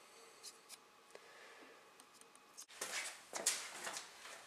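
Faint small ticks, then from about three seconds in a run of short rustling and scraping handling noises as a piston and tools are handled at a small engine block on a workbench.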